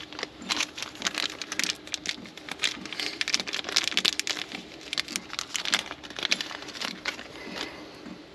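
Irregular crinkling and clicking from hands handling small things close to the microphone, busiest in the middle, over a faint steady low hum.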